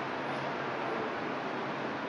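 Steady running noise inside a moving monorail car: an even hiss with no distinct knocks or tones.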